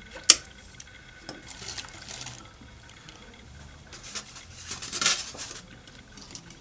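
A single sharp clack near the start. Then a white styrofoam takeaway box is handled and pried open, its lid creaking and crackling, loudest about five seconds in.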